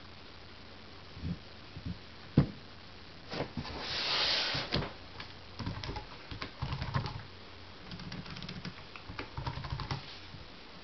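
Clicks from a laptop's keys and touchpad button, a short rustle of handling about four seconds in, then runs of quick light key taps as someone types on the Acer Aspire 1410's keyboard.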